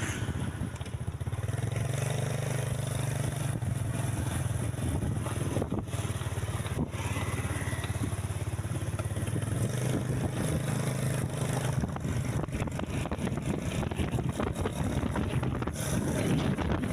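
Large vehicle engine, typical of a passing tour bus, running with a steady low hum that lasts about ten seconds and then fades into general traffic noise.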